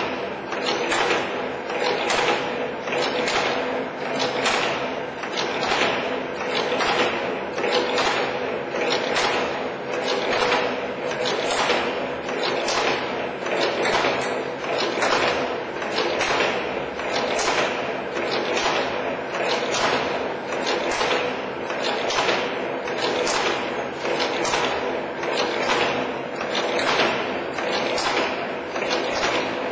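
Wire bending (V-bending) machine running, its cam-driven forming tools knocking in a steady rhythm of about one cycle a second over a constant motor hum.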